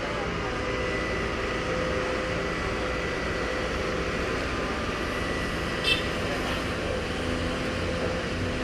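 Dredging ship's machinery running with a steady drone, a low hum under it and a faint held whine; a short click about six seconds in.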